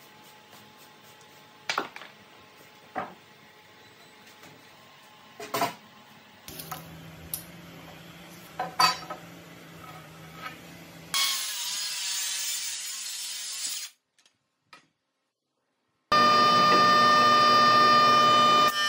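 Wooden boards knocking and sliding as they are handled, a few sharp knocks over a faint hum. About eleven seconds in, a loud hiss runs for three seconds. Near the end, after a short break, a jointer runs with a dense steady machine sound while a board edge is fed across it; this is the loudest part.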